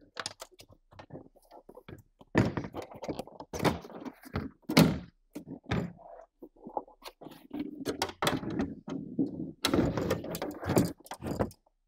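Hard plastic antenna enclosure being handled and opened on a tabletop: irregular knocks, clicks and thuds of plastic. The loudest knocks come about five seconds in and in a cluster near the end.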